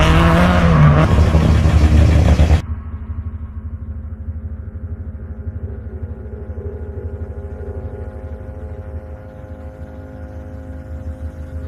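Rally car engine revving loudly, then cut off abruptly about two and a half seconds in to a muffled, steady engine rumble with a fast pulsing beat.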